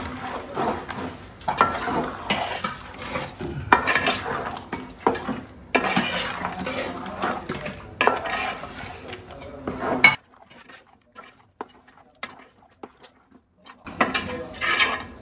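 A metal spoon stirring and scraping around a large aluminium pot of thick chicken curry as a ground coconut and cashew paste is mixed in. The clattering stops about two-thirds of the way through and starts again near the end.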